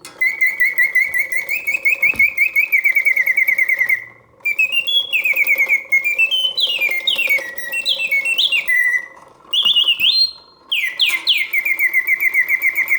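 Vintage Karl Griesbaum singing bird cage's automaton bird singing through its bellows-driven whistle: fast warbling trills with rising and falling glides, broken by two brief pauses about four and ten seconds in. It hits its proper oscillating notes, the sign of a mechanism in good working order.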